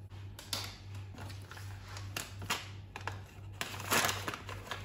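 Crinkling of a plastic spice packet being handled, in several short rustles with the loudest about four seconds in, over a steady low hum.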